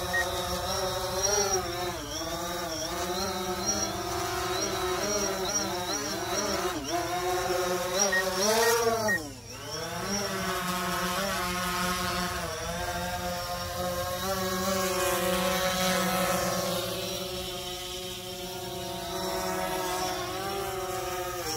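DJI Phantom 4 Pro quadcopter's propellers buzzing in flight, the whine of the blades rising and falling in pitch as the throttle changes. About nine seconds in the pitch dips sharply and comes straight back up, then it settles into a steadier hover.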